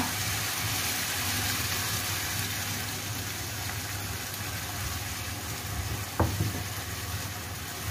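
Sliced bitter melon sizzling in a frying pan with the seasoning sauce and water just poured in, a spatula stirring it. One short knock about six seconds in.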